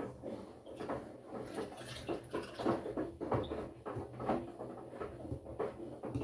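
Front-loading washing machine running a wash cycle: a steady low motor hum under irregular soft knocks and swishes of wet laundry and water turning in the drum.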